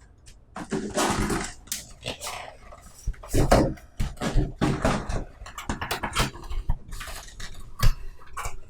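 Box being opened and its contents handled: irregular rustling, scraping and soft knocks of cardboard and plastic packaging.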